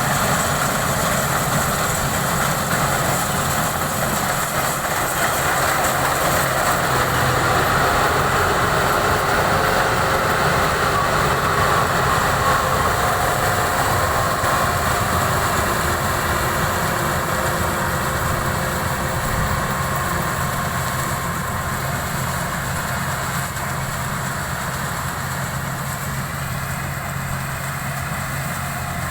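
Combine harvester engine and machinery running steadily under load.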